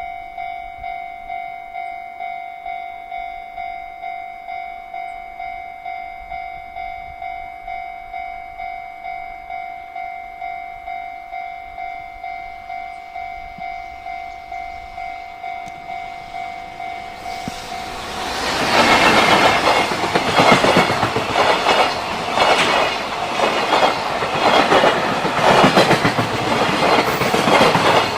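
Japanese level-crossing warning bell ringing steadily at about two strokes a second. About 18 seconds in, a freight train arrives and passes, loud, with a rhythmic clatter of wheels over the rail joints.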